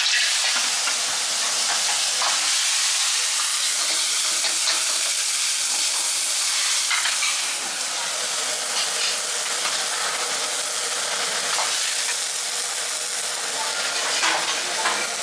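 Clams sizzling and bubbling in liquid in a wok over a high gas flame, a steady hiss, with a few light clinks of the metal ladle as it stirs.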